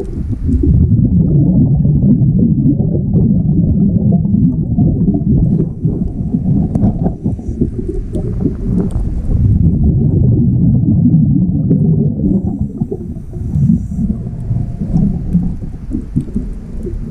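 Scuba diver breathing underwater through a regulator: long stretches of low rumbling exhaled bubbles, with a faint high hiss of inhaling twice in between.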